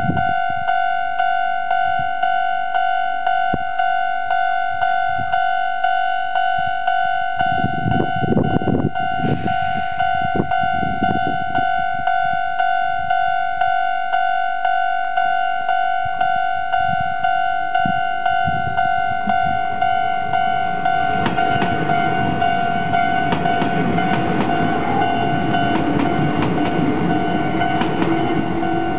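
Japanese level-crossing alarm bell ringing with an evenly repeating electronic clang. A low rumble comes briefly about eight seconds in. From about twenty seconds an electric train passes over the crossing with wheel clatter and a rising motor whine as it pulls away.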